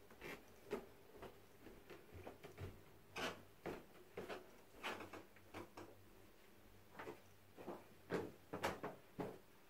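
Footsteps climbing carpeted stairs and walking onto the landing: a string of soft thuds at an uneven pace, about one or two a second.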